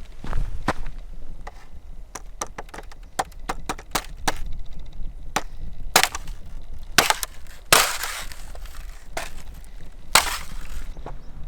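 Footsteps on the trail: an irregular run of sharp cracks and snaps, with several louder crunches from about six seconds in. A low wind rumble on the microphone sits underneath.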